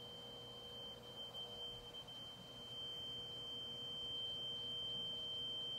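Steady, unbroken high-pitched test tone, the NAB wow-and-flutter test signal, played back from tape on a Sony TC-850 reel-to-reel deck running at 15 ips.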